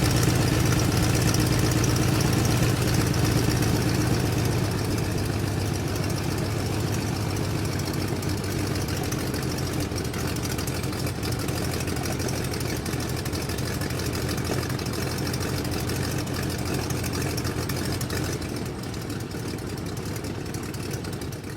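Airplane engine drone: a steady low hum over a broad rushing hiss that slowly fades, dropping away at the very end.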